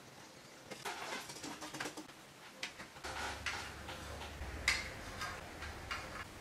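Homemade lemonade trickling from a jug into a plastic ice block mould, then a string of light plastic clicks and taps as the stick lids are pushed into the mould, one sharper click about halfway through.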